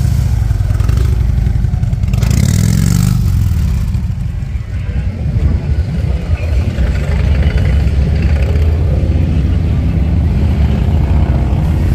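Motorcycle engine running with a low rumble, the revs rising briefly about two seconds in.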